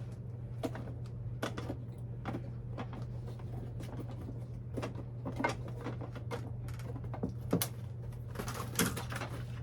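Scattered light clicks and knocks of hard plastic items being handled, irregular and a second or so apart, over a steady low hum.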